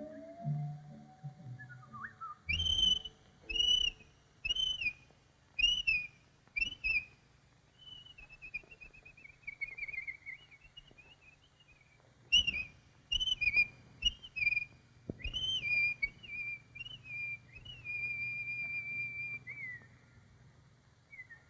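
Whistled bird calls for an animated bird: runs of short chirping notes, a falling trill in the middle, and a held note near the end.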